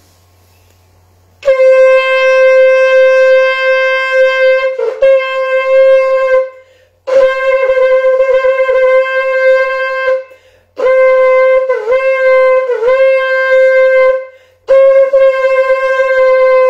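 A long, spiralled shofar blown in four long, steady blasts at a single pitch, each a few seconds long with short breaths between; the third blast dips in pitch twice.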